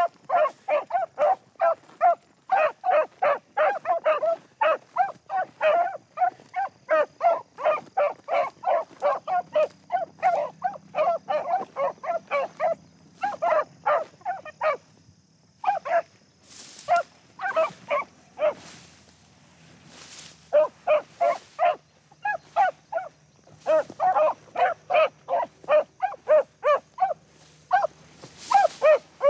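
Beagles barking in quick, overlapping bursts, several barks a second: hounds giving tongue as they run a rabbit's track. The barking stops for a couple of seconds about halfway through, then picks up again.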